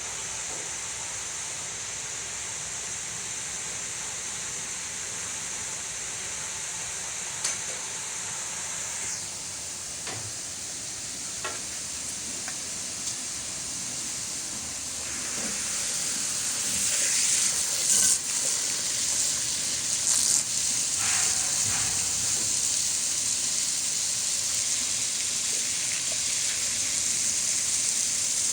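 Steady hiss of rushing, churning water in a water treatment clarifier/filter tank. It grows louder about halfway through, with a few faint knocks.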